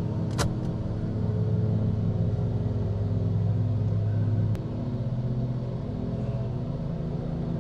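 Saab 9-7X SUV engine idling steadily with a low hum. About four and a half seconds in there is a sharp click, and the hum drops slightly in level.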